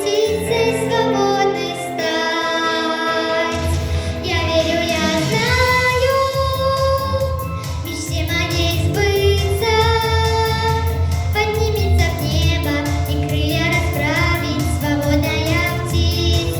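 A young girl singing a song over a backing track; a steady bass comes in about three and a half seconds in.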